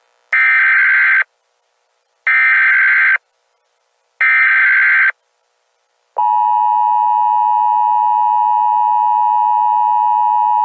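Emergency Alert System alert opening: three short bursts of digital SAME header data, each about a second long and evenly spaced. About six seconds in, the steady EAS attention tone starts and holds unbroken.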